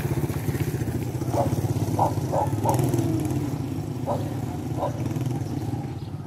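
A small engine running steadily with a fast, low throb, with a few short, higher blips over it.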